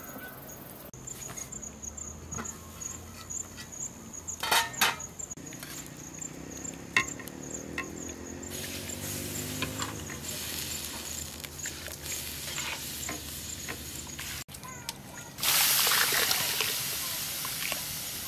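Soaked rice and its water poured from a bowl into a pot of boiling water: a loud splashing pour that starts near the end and slowly fades. Before it, the pot hisses and bubbles steadily, with a few knocks.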